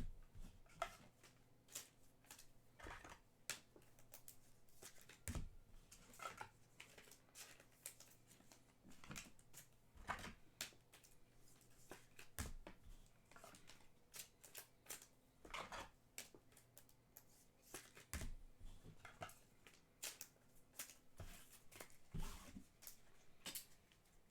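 Trading cards being slid into card sleeves and handled: faint, irregular rustles and light taps of card and sleeve.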